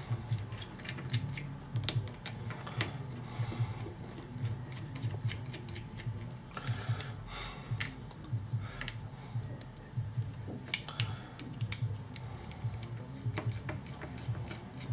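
Irregular small clicks and taps of tools and plastic speaker parts being handled during disassembly.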